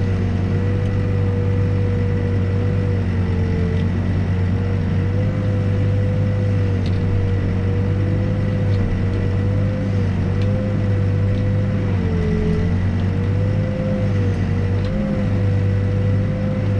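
New Holland B95 backhoe loader's diesel engine running steadily under digging load, with a hydraulic whine whose pitch sags briefly a couple of times as the machine works.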